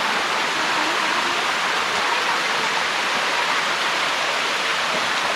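Water rushing steadily down a waterfall cascade.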